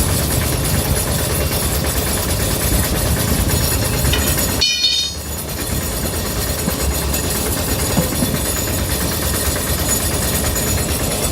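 A steady, loud vehicle engine and road rumble. About five seconds in it dips briefly under a short, high-pitched squeal.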